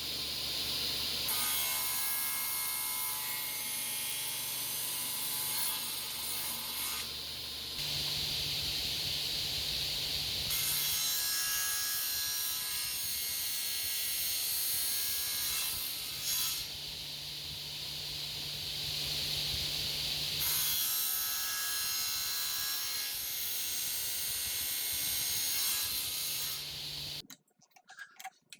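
An electric power tool running and working wood in several passes a few seconds long, with a steady hum under a high hiss; it stops abruptly near the end.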